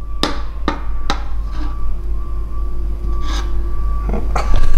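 Metal spatula scraping and tapping on the base of a frying pan as it cuts apart pancakes that have run together, with a few sharp clicks in the first second and more near the end.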